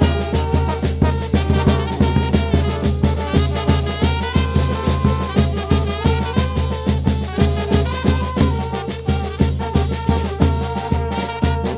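Mexican brass band (banda) playing an upbeat tune: horns carry the melody over a steady bass beat.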